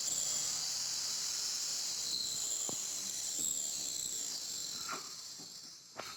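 Steady high hiss of a workshop air or power tool during exhaust-tip fitting, fading away near the end, with a few light knocks.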